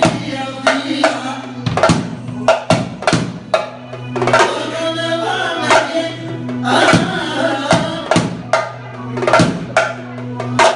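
Music with a drum beat: regular drum and percussion strikes over a melody instrument and a steady low drone.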